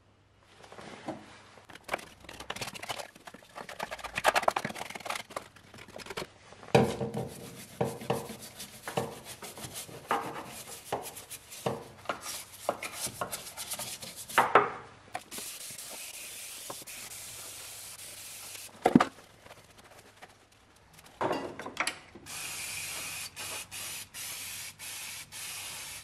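Caked dirt and grime being scooped and scrubbed out of a stripped Saab 900 engine bay, heard as irregular scraping and rubbing strokes on the metal. A few seconds of steady spray hiss follow, then a single sharp click. Near the end a pressure-washer jet hisses against the bay, steady with brief breaks.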